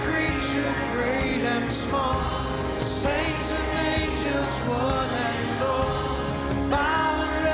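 A male singer performing a Christian worship song at a microphone, over sustained instrumental accompaniment.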